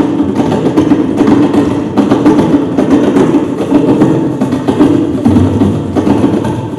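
Tabla and drum ensemble playing fast, dense, continuous strokes that imitate a train running at speed through a station, the beat a steady clatter like wheels on rail joints.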